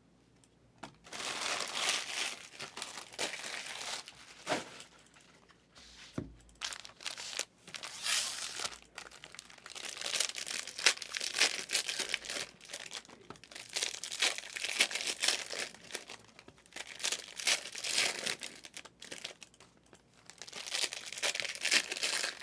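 Crinkly plastic wrapping of trading-card packaging being handled and torn, rustling unevenly in short spells.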